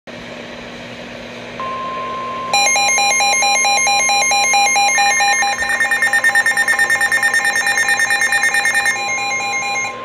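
NOAA Weather Radio warning alert: radio hiss, then the steady 1050 Hz warning alarm tone starting about one and a half seconds in. About a second later a weather radio's loud warbling electronic alarm joins it, and about five seconds in a second radio adds a faster-pulsing, higher beep. Together these signal an incoming Severe Thunderstorm Warning.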